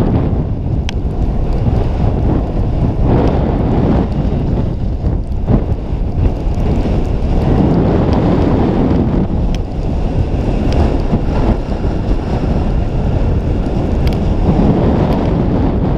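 Wind buffeting the microphone of a camera carried by a snowboarder riding downhill, swelling and easing every few seconds, with the board sliding over soft snow beneath it.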